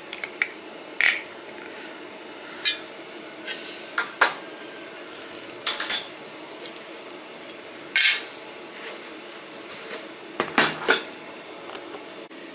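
Pliers and thin sheet-metal pieces being handled and set down on a steel workbench: irregular sharp metallic clinks and clanks, a dozen or so scattered hits with short gaps between them.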